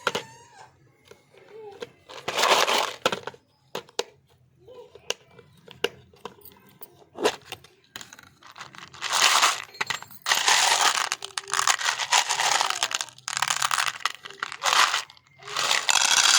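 Colourful hard candy being crushed in a meat grinder: sharp cracks and clicks, then repeated bursts of crunching, with a longer stretch in the second half.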